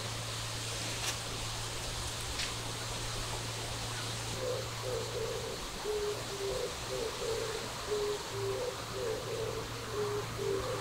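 A bird cooing in a low, rhythmic run of short hooting notes, about two a second, starting about four seconds in, over a steady outdoor hiss and a low hum.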